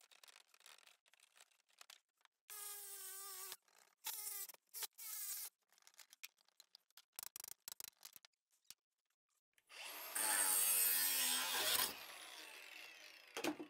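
Angle grinder with an abrasive cutoff wheel cutting galvanized steel pipe. After a few clicks and short whines, it starts about ten seconds in and runs loud for about two seconds. It is then released and winds down with a falling whine.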